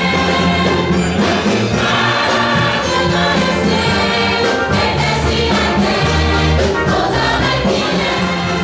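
Church choir singing a lively gospel-style hymn together, over low instrumental accompaniment with occasional percussion strokes.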